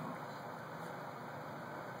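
Steady background hiss, even throughout, with no distinct sound standing out above it.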